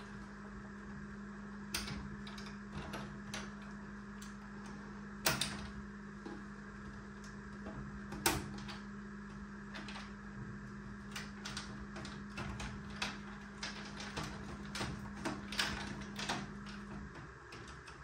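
Plastic wire-harness connectors being pressed and pulled off a washing machine's control board: irregular small clicks and snaps of plastic, a few sharper ones about two, five and eight seconds in. A steady low hum runs underneath and stops shortly before the end.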